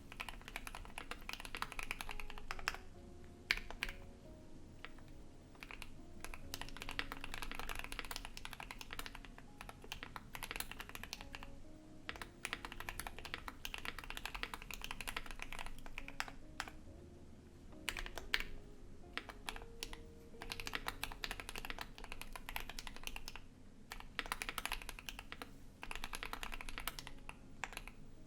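Typing on a Keychron Q1 mechanical keyboard with lubed and filmed JWK Alpaca linear switches, a polycarbonate plate and ABS keycaps. Keystrokes come in rapid runs of a few seconds each, broken by short pauses.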